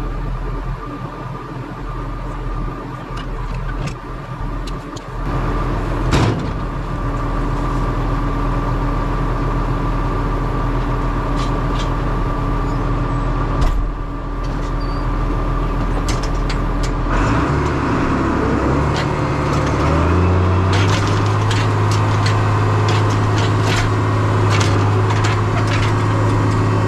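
Farm tractor engine running steadily, heard from the cab; about two-thirds of the way through it revs up and holds at a higher, louder note as the tractor pulls off with the forage wagon in tow. Clicks and rattles come from the hitched wagon as it gets moving.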